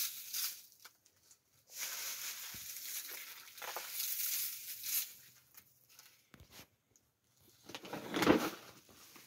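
Dry straw and chaff rustling and scattering as it is scooped up and tossed by hand, in uneven swishes, with a louder burst of handling noise near the end.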